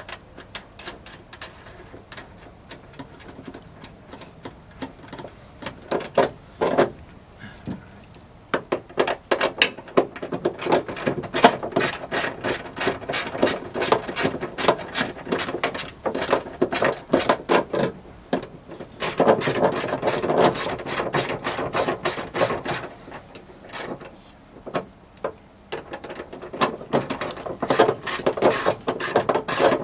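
Socket ratchet clicking in quick runs as nuts are run down onto the trunk latch's studs, with short pauses between runs.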